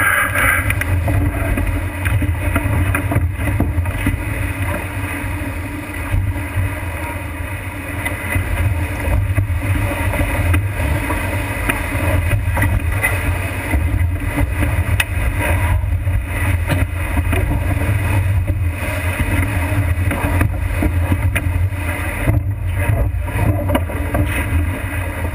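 Wind buffeting the microphone and water rushing past the hull of a sailboat heeled hard under sail in rough water, a steady heavy rumble with occasional knocks from waves and spray.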